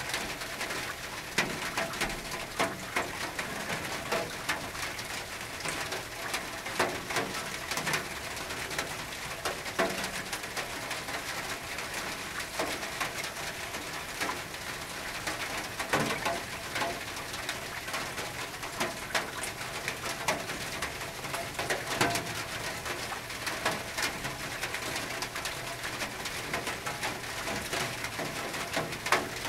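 Rain on a tin roof: a steady hiss of rainfall with irregular sharp drops ticking on the metal.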